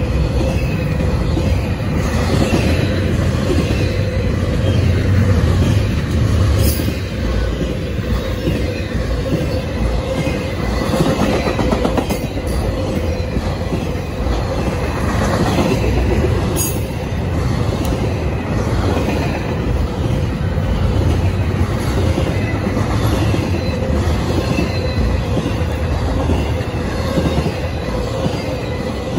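Double-stack intermodal freight train's cars rolling past: a steady loud rumble of steel wheels on rail with a thin steady tone over it, and two sharp clicks.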